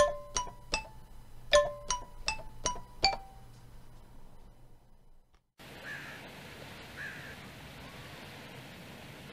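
A short intro jingle of bell-like struck notes, a quick run of chimes that rings out and fades over about three seconds. After a moment of silence, steady outdoor ambience of the shore begins, with two faint short calls about a second apart.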